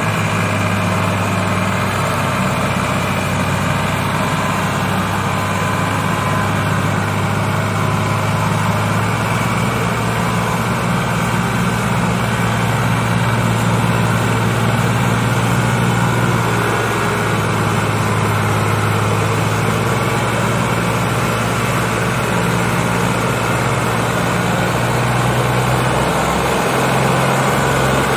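Diesel engines of two Ford tractors, a Ford 3610 three-cylinder in front and a second Ford behind, running steadily and hard under the heavy load of a loaded sugarcane trolley. The engine note shifts slightly near the end.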